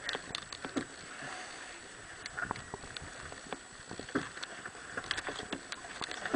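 Wind and water rushing past a sailing yacht under way, with scattered short clicks and knocks from the crew working lines and winches on deck.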